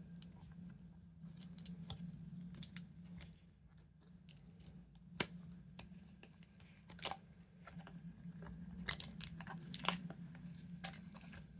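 Resin casting being worked out of its mold by hand: scattered short peeling and rustling sounds, with sharp clicks of hard resin pieces knocking, the sharpest about five seconds in. A low steady hum runs underneath.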